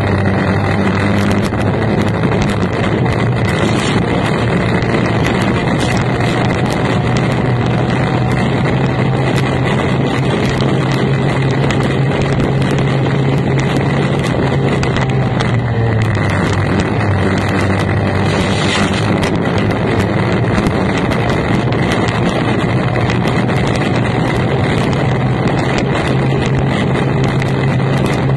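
Formula 1 tunnel racing boat's V6 two-stroke outboard engine running hard, loud and steady over heavy wind noise on the microphone. The engine note drops once about halfway through and then climbs back up.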